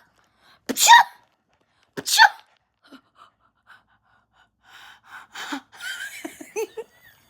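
A person sneezing: two sharp, loud bursts about a second apart, followed by a few seconds of faint noises.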